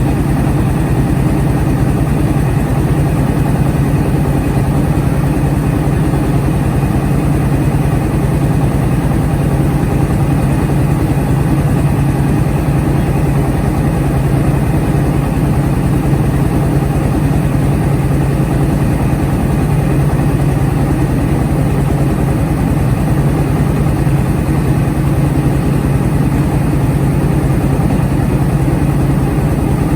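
Engine of a truck-mounted mobile rice mill running steadily at an even speed, with a strong low hum.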